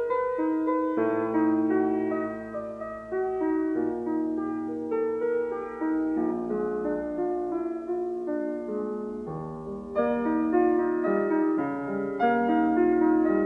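Background piano music: gentle chords and melody notes with no speech.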